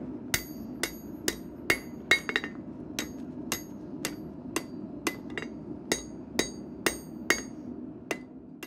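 Blacksmith's hammer striking a red-hot iron bar on an anvil in a steady rhythm of about two blows a second, each blow ringing off the anvil, over a steady low rumble. The blows stop and the sound fades near the end.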